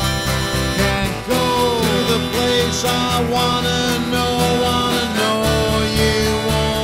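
Instrumental passage of a country-rock song: acoustic guitar over a steady bass beat, with a lead line bending in pitch.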